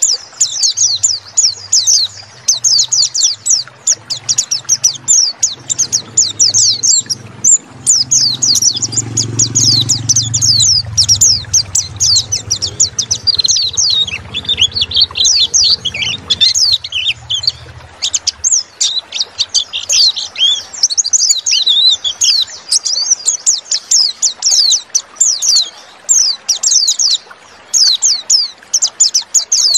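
Pleci (white-eye, Zosterops) singing a fast, unbroken high twittering song of quick chirps, mostly falling in pitch. It is a lure song of the kind played to set caged pleci singing. A faint low rumble lies underneath for the first half or so.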